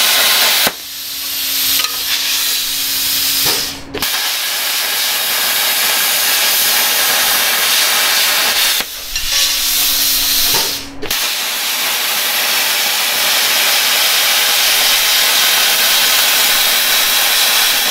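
Handheld plasma cutter cutting steel plate: a loud steady hiss of the arc and air jet. Twice the cut stops and the sound drops to a softer hiss with a low steady hum, then the loud hiss starts again.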